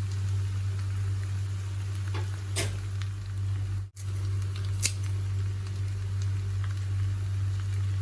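A spatula stirring and mixing macaroni in a pan, with a few sharp clicks against the pan, over a steady low hum. The sound drops out briefly about four seconds in.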